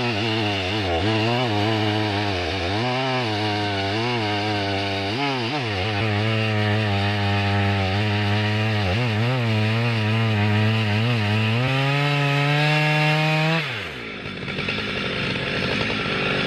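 Large 122cc two-stroke chainsaw running at full throttle while cutting a big log, its pitch dipping again and again as the chain bogs under load. About twelve seconds in it revs higher, then the throttle is released and it drops to a quieter idle about fourteen seconds in.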